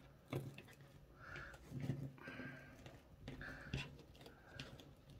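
Faint handling sounds of a stiff sinamay strip being folded and creased by hand on a cutting mat: scattered small clicks and soft crinkly rustles.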